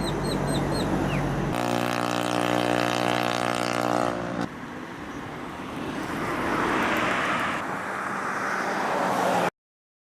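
Joined outdoor field recordings: birds chirping briefly over a low hum, then an engine running steadily for about three seconds, then a noisy outdoor bed, cutting off suddenly near the end.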